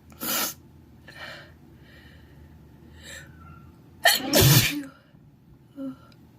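A man with a cold sneezing: a short sneeze at the start, a few sharp breaths in, then a louder, longer sneeze about four seconds in.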